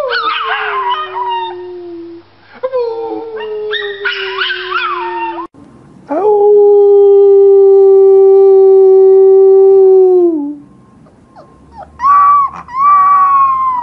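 Dogs howling. A small fawn dog howls with a second, lower howl alongside, falling in pitch. After an abrupt change comes one long, steady, lower howl of about four seconds that drops at its end. Near the end a husky puppy gives two short, higher howls.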